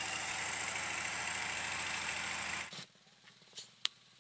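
Diesel engine of a truck-mounted crane running steadily, then cutting off abruptly about two-thirds of the way in. A few faint clicks follow, with one sharp tick near the end.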